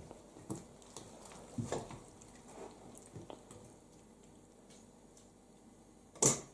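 Small wet fish being handled by hand in a bowl while being sorted and cleaned: soft, scattered squelches and clicks. A sharper knock against a metal bucket comes near the end.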